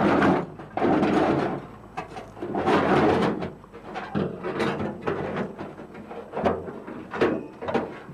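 Clattering and scraping of fuel-tank mounting hardware being handled: several rough scraping noises in the first three seconds, then a few short sharp knocks.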